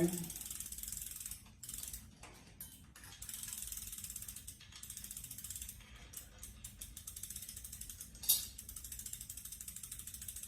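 Vintage Schwinn bicycle drivetrain being turned by hand during chain fitting: the rear freewheel's pawls tick rapidly and evenly as the chain runs over the chainring and sprockets, with one sharper click about eight seconds in.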